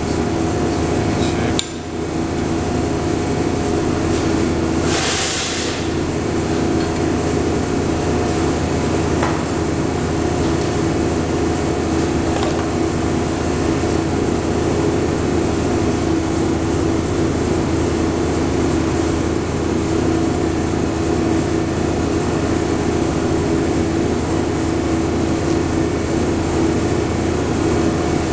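Steady machine hum from the TIG welding setup running idle, with no arc struck. There is a click about a second and a half in and a short hiss about five seconds in.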